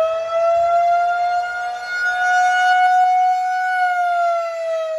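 Federal Signal 2001-130 single-tone rotating electromechanical siren sounding the wailing attack signal. Its tone climbs, holds high, and begins to fall about four seconds in, with the loudness swelling and dipping as the rotating horn sweeps past. It is very loud.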